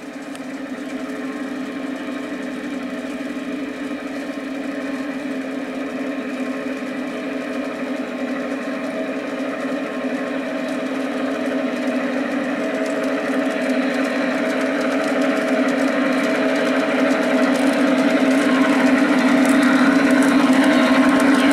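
Two LGB F7 garden-scale model diesel locomotives hauling a freight train: a steady motor-and-gear hum that grows louder as the train approaches, with a rising rush of wheels on the track near the end.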